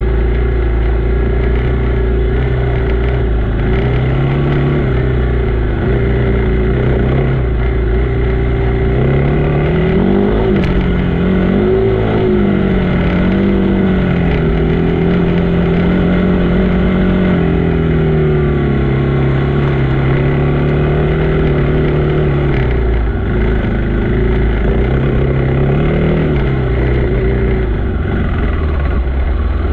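Off-road vehicle engine running continuously along a dirt trail. Its pitch rises and falls with the throttle: it climbs in pitch around ten seconds in, holds, eases off, and rises briefly again near the end, over a steady low rumble.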